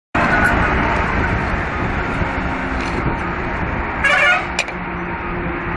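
Road traffic passing close by: the engine and tyre noise of a truck, a bus and cars. About four seconds in, a vehicle horn honks once for about half a second.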